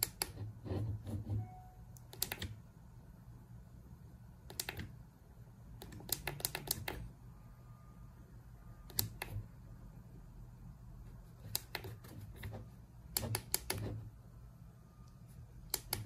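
Plastic push buttons on a battery camping fan's control panel clicking as they are pressed, in irregular runs of quick clicks every second or two, over a faint steady low hum.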